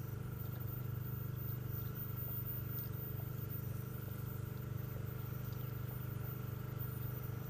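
An engine running at a steady speed, with a thin steady whine above its low hum.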